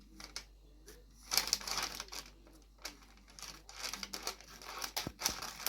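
Gift-wrapping paper rustling and crinkling in irregular bursts as it is handled and folded, with a couple of sharp clicks about five seconds in.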